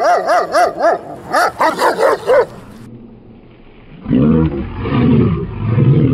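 Four-year-old male German Shepherd barking aggressively at a person coming toward him. About nine quick, high-pitched barks come in the first couple of seconds, then after a short pause a run of lower-pitched barks.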